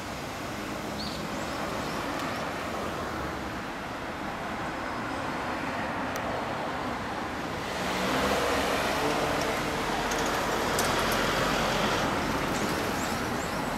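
Yamaha XJR400 air-cooled inline-four idling steadily through an aftermarket RZ-style exhaust, with road traffic passing close by. The traffic noise grows louder from about halfway through.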